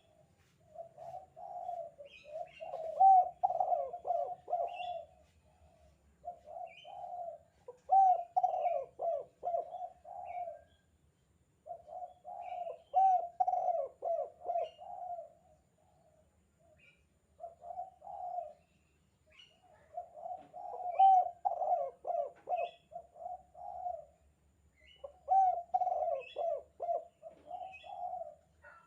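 Spotted dove (tekukur) calling in the 'kuk 2' style: about six cooing phrases, each a run of low coos separated by short pauses. Faint higher chirps of small birds come between the phrases.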